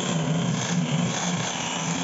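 Angle grinder with a sanding disc running steadily while it is pressed across a wooden door's surface, a continuous motor hum with the rasp of abrasive on wood.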